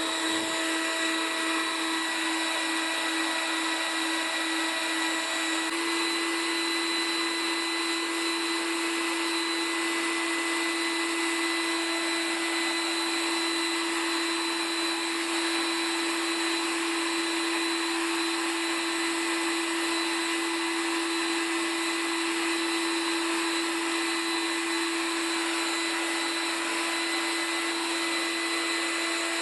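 Homemade central vacuum's vacuum-motor turbines running continuously: a steady motor whine over a dense hiss of rushing air, with a slight change in tone about six seconds in.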